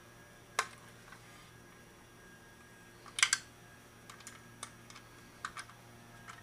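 Hand-handled motorcycle intake parts clicking and tapping as they are seated: a sharp click about half a second in, a louder cluster of clicks around three seconds, then a string of lighter ticks.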